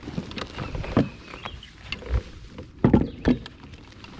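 Irregular knocks, clicks and rustling in a kayak as a freshly landed largemouth bass is handled, with two heavier thumps about three seconds in.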